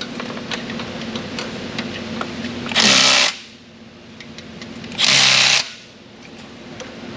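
A small impact gun fires in two short bursts about two seconds apart, running down the oil filter housing bolts.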